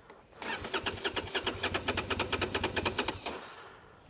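Motorcycle V-twin engine cranked by its electric starter for about three seconds, a quick, even chugging of about ten beats a second that stops without the engine catching. The rider wonders whether the fuel pump wasn't priming.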